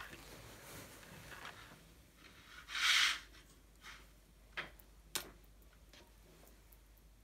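Quiet room with small handling sounds: a short rustle about three seconds in, then two or three faint sharp clicks.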